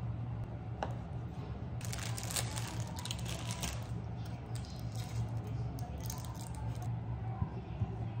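Thin plastic film crinkling and tearing as it is peeled off a cheese chikuwa, in two stretches of rustling. A single knife tap on a wooden cutting board comes near the start, over a steady low hum.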